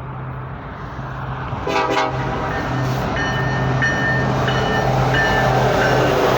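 BNSF EMD SD70ACe diesel locomotive leading a loaded coal train, approaching with a steady low engine drone that grows louder; its horn gives one short blast about two seconds in. Thin high-pitched tones come and go after that.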